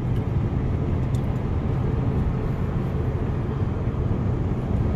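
Steady low rumble of tyre and engine noise heard from inside a car's cabin while driving on a highway.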